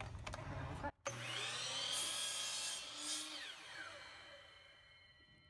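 Bosch sliding miter saw motor starting with a rising whine and cutting through a wood strip, then switched off, the blade winding down with a falling whine that fades out.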